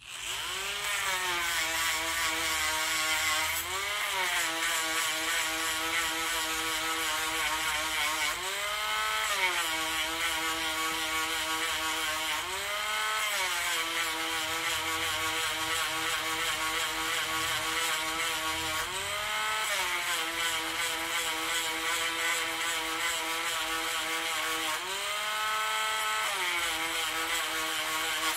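Dremel rotary tool running with a steady high whine, grinding the edge of a silver Morgan dollar coin ring to round it off and flatten it. Its pitch rises briefly and settles back about every four to six seconds.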